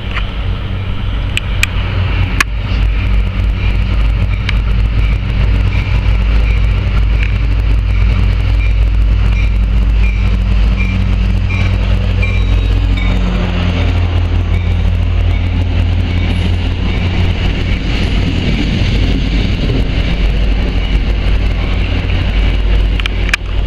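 Diesel locomotive, an EMD F40PH, running steadily with a deep engine hum as it pulls a commuter train in past the platform, followed by the passenger coaches rolling by on the rails.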